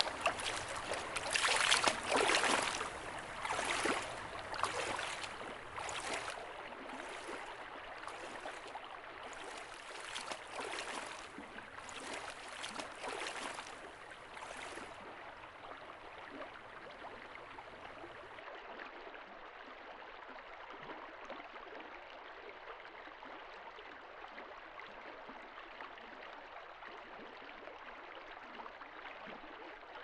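Legs wading through shallow river water, a splash with each step about once a second, growing fainter and stopping about halfway. After that, a steady faint hiss of flowing river water.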